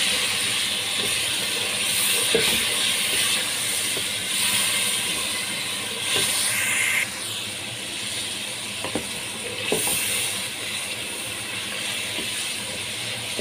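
Onion, tomato and spice masala sizzling in oil in a pot while a wooden spoon stirs it, with a few light knocks of the spoon against the pot. The masala is being fried down (bhuna) with a splash of water, and the sizzle eases a little after about seven seconds.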